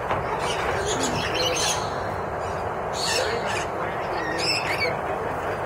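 Lorikeets calling in an aviary: scattered short, high chirps and squawks, a cluster about three seconds in and another near the end, over a steady background hubbub.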